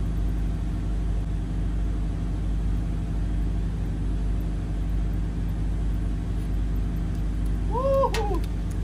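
Steady low hum of the boat's engine running. About 8 seconds in there is one brief rising-and-falling vocal call.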